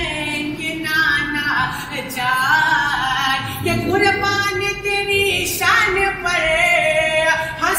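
A voice singing a devotional naat in long held notes that bend in pitch, with no clear words.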